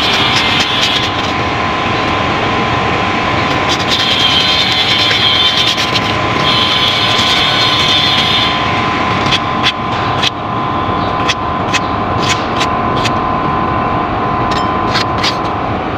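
A steady mechanical drone from a running machine, with three stretches of high hiss in the first half and a run of sharp clicks in the second half.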